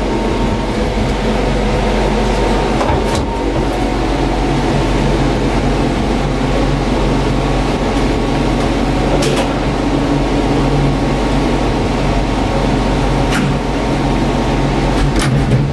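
Steady mechanical hum and whir of the Gateway Arch tram capsule at rest at the bottom station, with a few faint clicks.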